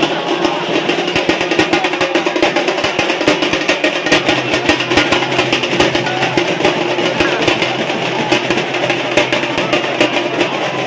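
Rapid, loud drumming with dense strikes, over the shouting of a big crowd.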